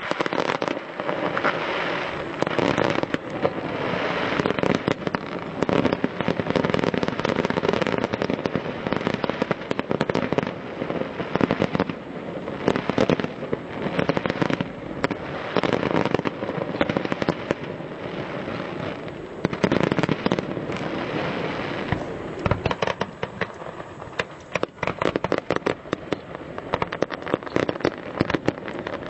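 A fireworks display going off: a dense, continuous barrage of shell bursts and crackling, many bangs a second with no break.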